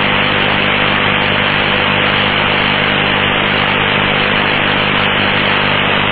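Aviation radio channel keyed open with no voice on it: a loud, steady static hiss with a low electrical hum underneath, band-limited like a radio transmission.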